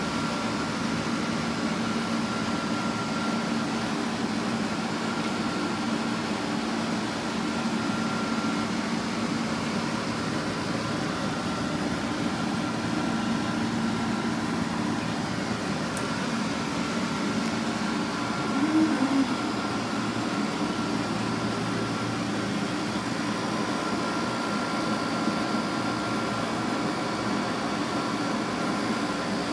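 Steady mechanical hum with a faint high tone held over it, like a running fan or ventilation unit; a brief louder rustle about nineteen seconds in.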